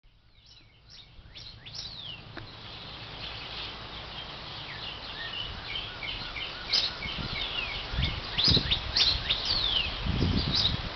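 Female northern cardinal singing: a run of clear, quick downslurred whistles and chirps, repeated again and again. Low thumps from the handheld camera come in during the second half.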